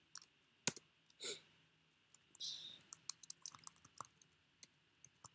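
Faint computer keyboard keystrokes and clicks, scattered and irregular, with a short hissy breath-like sound about two and a half seconds in.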